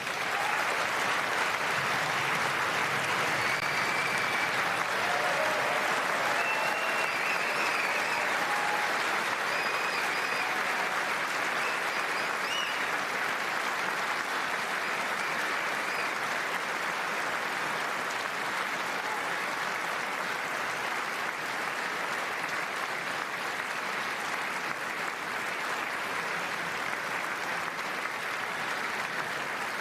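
Long, steady applause from a large audience, easing slightly toward the end, with a few short high whistles heard over it in the first half.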